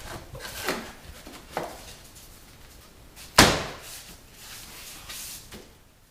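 Laminate floor plank being laid and locked into place: a few light knocks and clicks, then one loud sharp clack about three and a half seconds in as the board comes down flat on the floor.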